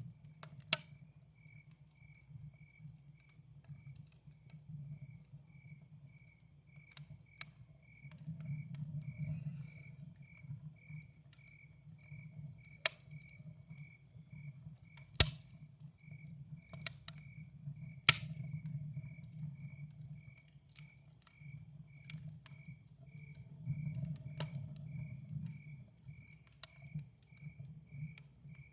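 Campfire crackling, with scattered sharp pops over a low steady rumble of flames, the loudest pop about halfway through. Crickets chirp steadily in an even rhythm behind it.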